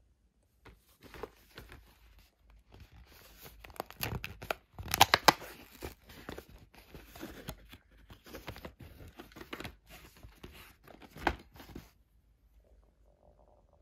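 Cardboard door of a chocolate advent calendar being torn open along its perforations, with crackling of card and the plastic tray behind it. The tearing is loudest about four to five seconds in, with a sharp snap near the end.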